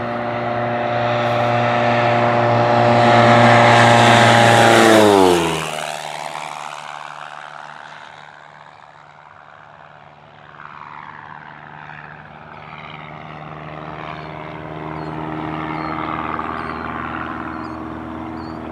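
American Champion Xtreme Decathlon aerobatic plane's four-cylinder Lycoming engine and propeller making a low, fast pass. The drone grows to its loudest about five seconds in, then drops sharply in pitch as the plane goes by and fades. It grows louder again in the second half.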